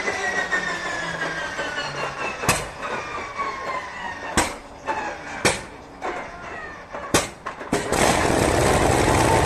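Shvetsov ASh-62 nine-cylinder radial aero engine being started: a whine falling in pitch as it is cranked over, then several sharp single pops as cylinders fire, a quick run of pops, and it catches about eight seconds in and runs loudly.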